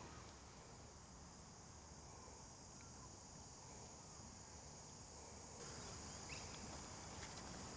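Faint, steady high-pitched buzzing of insects, a little louder from about five and a half seconds in.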